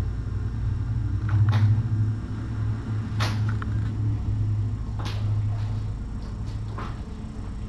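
Tabby cat purring close to the microphone, a steady low rumble that weakens about six seconds in. Four short, sharp clicks come roughly every two seconds over it.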